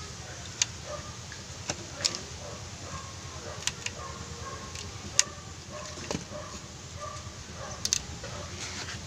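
Rubber band being stretched and wound by hand around a small piece of wood: about half a dozen sharp clicks and snaps scattered over a faint steady background.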